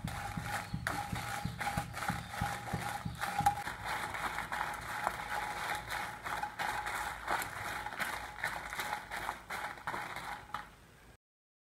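Wooden spatula stirring and tossing dry red chillies in a nonstick pan while they dry-roast: a dense run of irregular light clicks and scrapes. It cuts off suddenly near the end.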